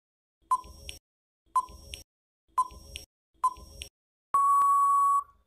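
Quiz countdown timer sound effect: four short beeps about a second apart, then one long steady beep of about a second that marks time up.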